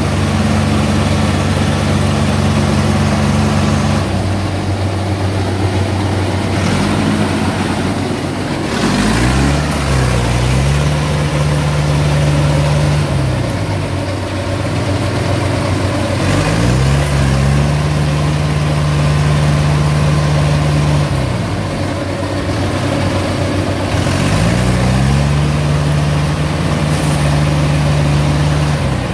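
Diesel engines working hard while a Yanmar AW82V combine harvester, bogged down in deep mud, is pulled out on a chain. The engine pitch climbs and holds again about every seven or eight seconds as the machines strain against the mud.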